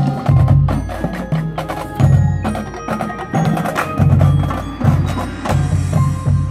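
High school marching band playing live in a percussion-heavy passage: mallet keyboards and drum strikes over low held notes that swell and fade.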